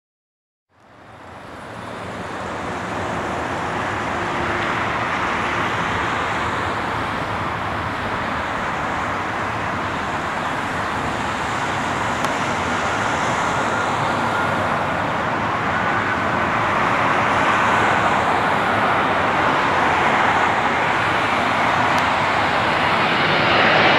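Jet engines of a Boeing 777-200ER on final approach: a steady rushing noise with a faint high whine. It fades in about a second in and grows slowly louder as the aircraft nears.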